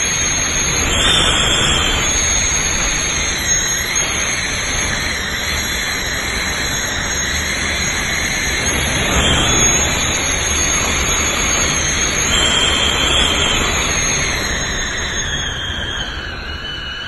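Category 5 Hurricane Dorian's extreme winds blowing, a loud steady rush of wind with a high whistle that comes and goes.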